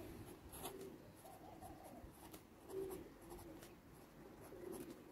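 Pen writing on paper, heard as faint scratches and ticks from short strokes. Behind it, a soft low-pitched call repeats several times, each call about half a second long.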